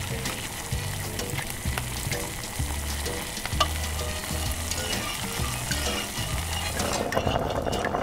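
Dark cola mixture bubbling as it heats in a miniature stainless-steel pot, stirred with a tiny metal spoon that gives scattered light clicks. About seven seconds in the sound turns lower and fuller as it comes to a rolling boil.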